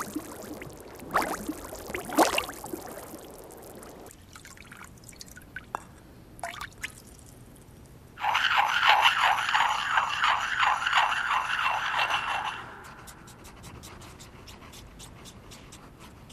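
Water dripping into wet clay, a few separate drops, then about four seconds of rapid, scratchy wet scraping as the wet clay is worked by hand. The scraping starts suddenly about halfway through and fades out.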